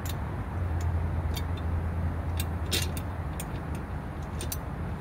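Scattered sharp metal clicks and clinks as the sharpened dual blades are fitted under the deck of a tipped-over Honda walk-behind lawn mower, the loudest about three seconds in, over a steady low rumble.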